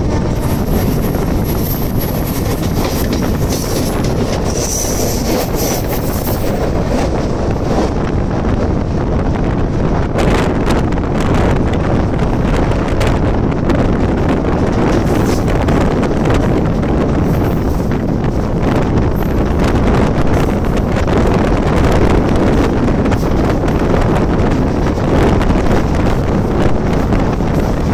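Mumbai suburban electric local train running along the track, heard from its open doorway: a steady, loud rumble of wheels on rail, with wind buffeting the microphone.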